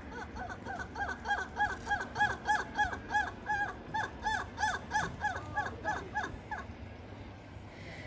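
A lemur giving a rapid, even series of short pitched calls, each rising and falling, about three or four a second, growing louder and then stopping abruptly about six and a half seconds in.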